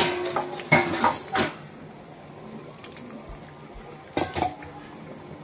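Metal ladle knocking and clinking against an aluminium kadai of dal: several sharp knocks in the first second and a half, then two more about four seconds in.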